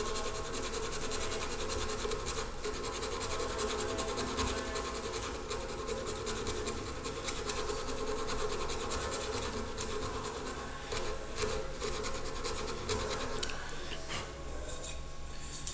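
Hand file rasping in steady back-and-forth strokes across a steel putty knife blade held in a bench vise, filing the silicon bronze weld repair down flush. Near the end the strokes give way to a few separate shorter scrapes and clicks.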